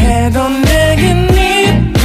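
Background music: an R&B-style pop song with a steady beat.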